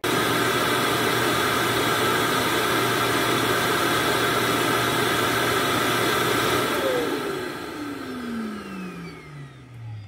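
Ecovacs Deebot X1 Omni base station's auto-empty suction motor emptying the robot's dust bin: a loud, steady rush of air that starts abruptly. About seven seconds in, the motor shuts off and spins down with a falling whine.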